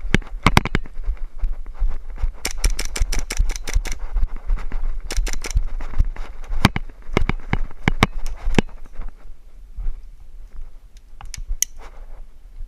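Airsoft guns firing sharp snapping shots, singly and in quick bursts, over a steady low rumble that fades about nine seconds in.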